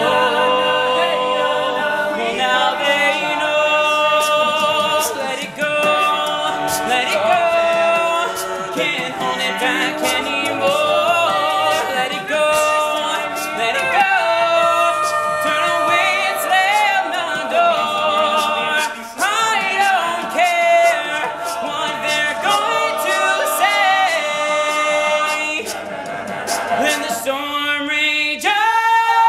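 All-male a cappella group singing in close harmony, a lead voice over backing voices, with crisp clicks of vocal percussion. Near the end the sound drops out briefly and a new chord starts.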